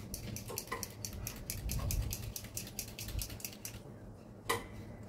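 Rapid run of small metallic clicks, about seven a second, for nearly four seconds, from hand work at the top of a hydraulic rotator's gear head, then a single sharper click about four and a half seconds in.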